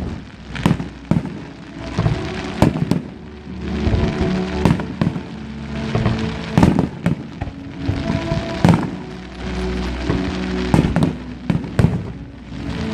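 Fireworks display: aerial shells bursting one after another in quick, irregular succession, about one or two bangs a second, with music playing underneath.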